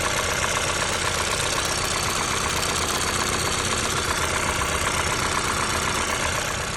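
Hyundai i20 N's 1.6-litre turbocharged petrol engine idling with a steady, rapid knocking noise running through it.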